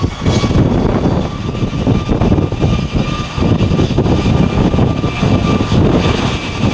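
Jet aircraft engines running loud: a deep rumble with a faint steady whine above it.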